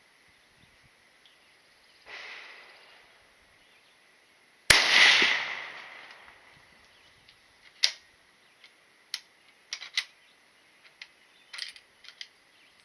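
Gunshots at an outdoor range: a fainter shot about two seconds in, then one loud close shot with a long echoing tail about halfway through, followed by a scattering of light clicks and taps.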